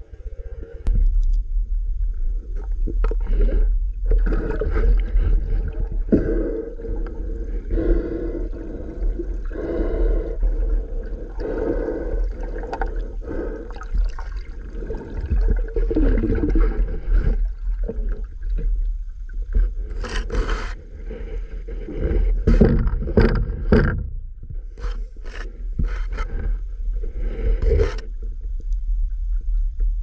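Muffled underwater sound picked up by a camera in a waterproof housing: water moving and rubbing against the housing over a steady low rumble that begins about a second in, with irregular sharp clicks, more of them in the second half.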